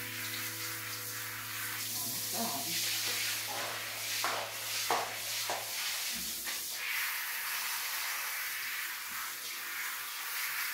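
Water spraying from a handheld shower head held against a wet cat's fur: a steady hiss of spray.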